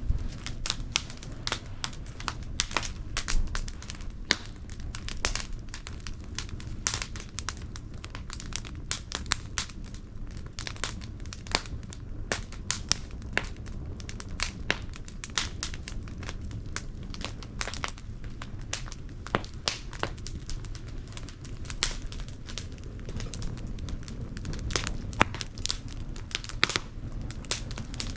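Fire crackling in a washing-machine-drum fire pit: dense, irregular snaps and sharper pops over a low steady rumble.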